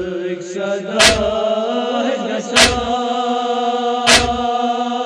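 Men's voices chanting a Kashmiri noha, a Shia mourning lament, in long held notes. A heavy beat strikes about every second and a half to keep time.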